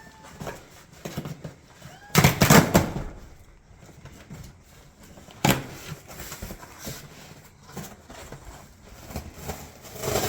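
A cardboard box being cut and opened by hand: cardboard and packaging scraping and rustling, loudest about two seconds in, with a sharp knock about five seconds in.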